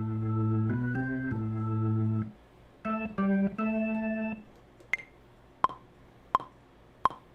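Chopped slices of a keyboard sample with an organ-like tone, triggered one after another. Each sustained chord starts and cuts off abruptly, and the pitch changes between chops. In the second half come four short, sharp plucked hits, evenly spaced.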